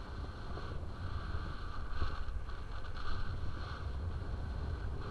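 Airflow buffeting the microphone of a camera carried by a paraglider pilot in flight: a steady low rumble with an airy hiss that swells a little about two seconds in.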